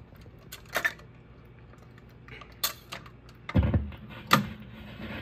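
Record changer cycling between 45s: a run of mechanical clicks, a dull thump about three and a half seconds in as the next record drops onto the platter, then a sharp click as the tone arm sets down, with a faint steady motor hum after.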